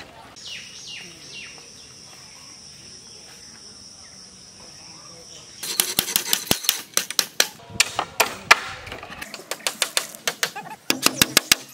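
Rapid, irregular sharp knocks and taps on bamboo poles as a bamboo platform frame is built, starting about halfway through. Before they start there is a steady high-pitched whine in the background, with a few short falling calls near the start.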